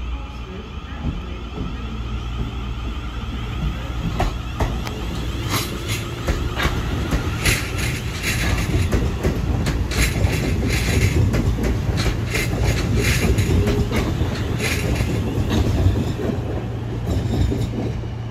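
Four-coach Class 450 Desiro electric multiple unit running past close by, its wheels clicking repeatedly over rail joints and points over a steady low hum. It grows louder as the coaches pass and eases off near the end.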